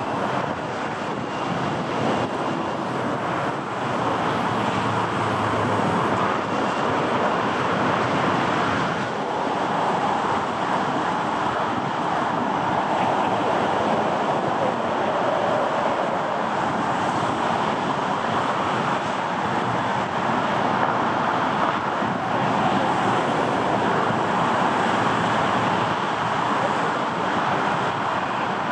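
Steady, even roar of aircraft ground noise as an Airbus A350-900 is towed past by a tug, with no distinct tones or sudden sounds.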